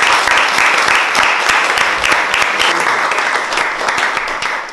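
Audience applauding, a dense patter of many hands clapping that fades toward the end.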